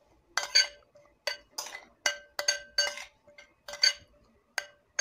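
Metal spoon stirring vinegar dressing in a ceramic bowl, clinking against the sides about two or three times a second at an uneven pace, each clink ringing briefly.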